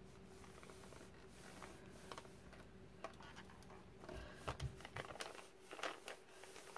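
Faint rustling and light scraping of a clothes iron's soleplate sliding back and forth over parchment paper, with scattered small clicks.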